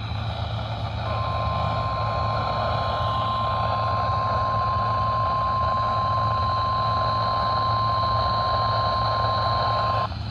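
NOAA Weather Radio warning alarm tone, the 1050 Hz single steady tone, sounding from a RadioShack 12-254 weather radio's speaker over reception hiss. It starts about a second in and cuts off just before the end, about nine seconds long. It signals an incoming warning broadcast, here a flash flood warning.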